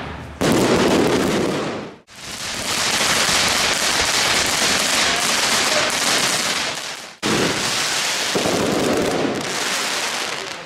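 Fireworks crackling and hissing in a dense, steady wash, cut together from several clips: the sound changes abruptly about half a second in, drops out briefly at about two seconds, and jumps again a little after seven seconds.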